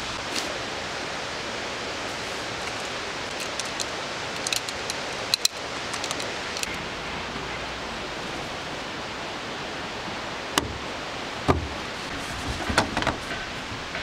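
Steady, even outdoor hiss with scattered light clicks and taps, then several sharper knocks in the last few seconds, from a fabric-topped folding camp table being handled and set down on a wooden deck.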